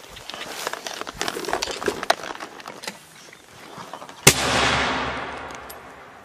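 Rustling and scattered clicks of people moving through dry grass and brush. About four seconds in, a single loud mortar shot: a sharp bang followed by a long rolling echo that fades over about two seconds.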